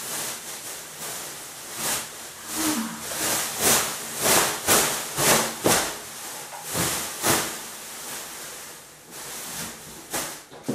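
Large clear plastic sheet being shaken and flapped out, rustling and crackling in a quick series of loud swishes. It quietens near the end as the sheet is smoothed down flat.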